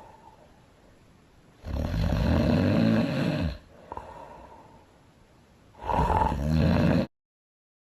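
A woman snoring loudly: two long, rough snores, each under two seconds, with a faint breath between them. The sound cuts off suddenly near the end.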